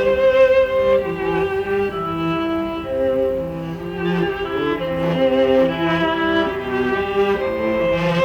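Instrumental music led by violin and other bowed strings, a melody of held notes, played back through a small portable Bluetooth speaker under test.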